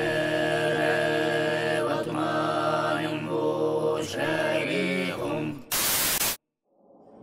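Soundtrack music of held, droning chords that shift every second or so, then a short burst of static-like white noise that cuts off suddenly into silence.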